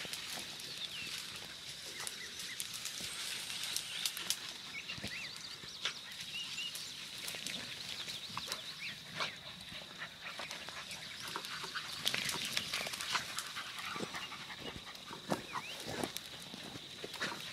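Rabbit-hunting beagles giving short, scattered barks while they search for a lost rabbit track.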